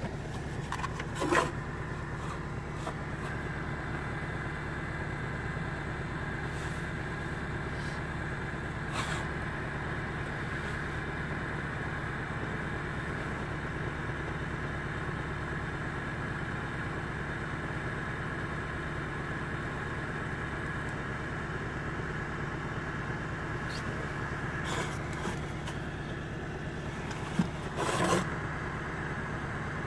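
Portable 12 V car heater fan blowing steadily at the windscreen over the hum of the car's idling engine, with a faint steady high whine. The plastic heater is knocked by hand about a second in and again near the end.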